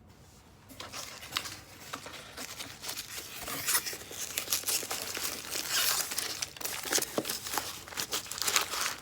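Packaging being handled, crinkling, rustling and tearing in a dense crackle that starts about a second in and grows louder.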